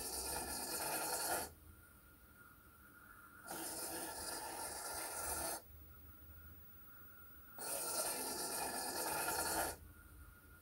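Large hobby servo driving the paddle packer of a 3D-printed PLA model rubbish truck on its automatic cycle: it runs in stretches of about two seconds with two-second pauses between them, three runs in all. The pauses are built into the cycle to hold rubbish in the hopper.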